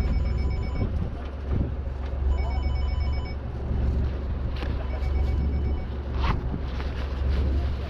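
Electronic beeping tone sounding in bursts of about a second, roughly every two and a half seconds, over the steady low drone of a fishing boat's engine.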